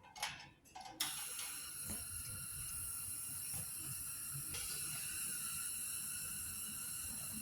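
A portable heater that has just been lit: a faint click, then about a second in a steady hiss from its burner starts and runs on evenly.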